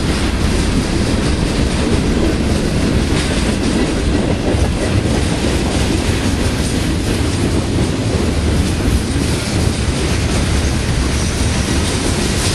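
Freight cars of a BNSF manifest train rolling past close by: a loud, steady rumble of steel wheels on rail, with scattered clacks from the wheels and cars.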